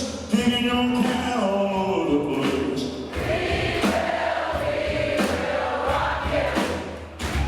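Live band music: several voices sing together in harmony over drums, their notes sliding down together about a second in.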